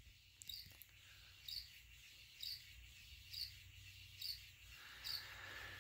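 Canarm Twister ceiling fan turning on low speed, giving a faint chirp about once a second as it rubs on its housing, because the fan is standing on the floor. A low hum runs underneath.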